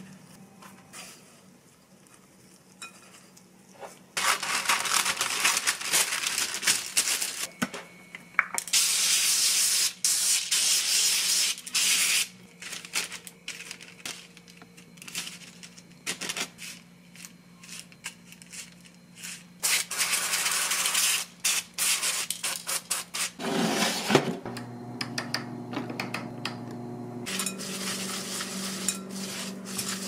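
Olive oil cooking spray hissing in several long bursts of a few seconds each, over breaded chicken in an air fryer basket, with softer rubbing and light clinks between the bursts.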